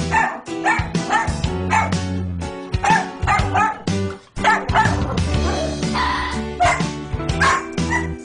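Background music with a dog making repeated short, high-pitched cries over it.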